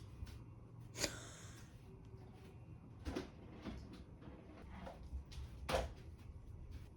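A few short, scattered knocks and clicks, five in all: the loudest come about a second in and near the end, over a faint steady background.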